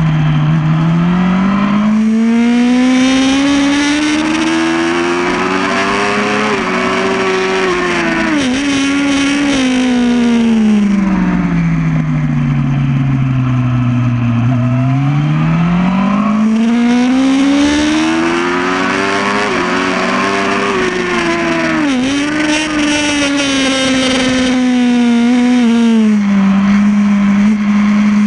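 2008 Yamaha R1's inline-four engine recorded on board at speed, its pitch climbing in long sweeps under acceleration and falling away as it slows, about three times. There are a few brief dips in the pitch along the way.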